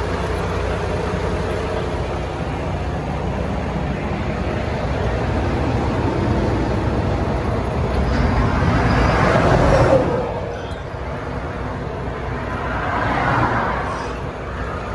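Freeway traffic passing close by: a steady low rumble with a vehicle swelling past and cutting off suddenly about ten seconds in, and another passing around thirteen seconds.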